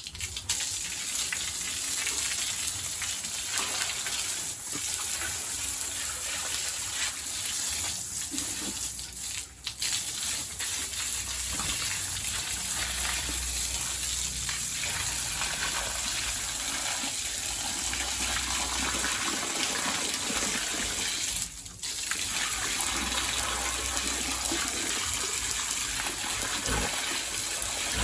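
Water gushing steadily, broken off briefly twice, about a third of the way in and about three quarters of the way in.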